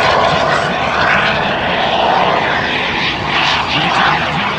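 Small PBS TJ100 turbojet on a jet-powered sailplane running in flight, a loud rushing jet noise that swells and fades as the aircraft passes.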